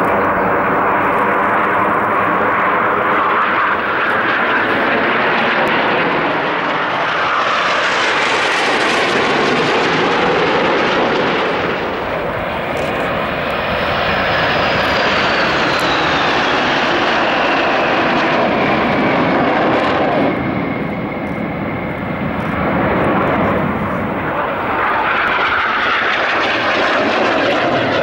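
Jet noise from the Frecce Tricolori's formation of Aermacchi MB-339 trainers, a steady loud rush of their turbojets, with a thin whine that falls in pitch from about halfway through. It dips briefly about three-quarters of the way through and swells again near the end.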